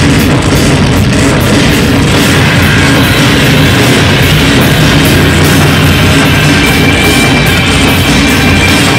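Loud live noise-rock played as one continuous, dense wall of distorted guitar noise over steady low droning tones.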